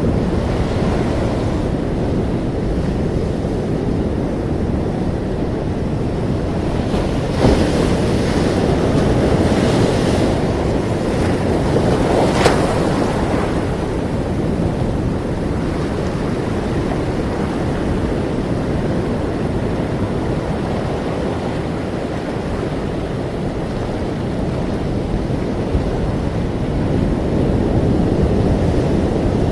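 Ocean surf: waves washing in continuously with a rushing sound that swells and eases. There is a sharper splash of a breaking wave about twelve seconds in.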